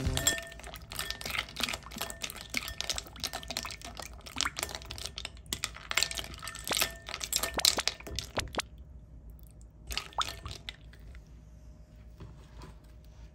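Ice cubes clinking against a glass bowl and sloshing in a soy sauce and sesame oil dressing as a plastic spoon stirs them: a quick run of clinks that stops about nine seconds in, with a few more clinks about a second later.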